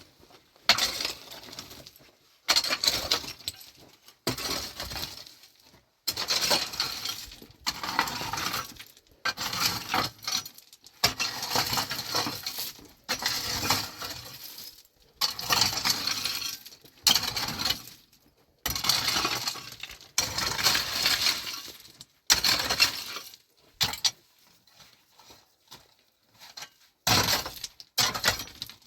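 Stony soil being dug and shovelled: a gritty scrape and clatter of stones about every one and a half to two seconds, fainter and shorter for a few strokes near the end.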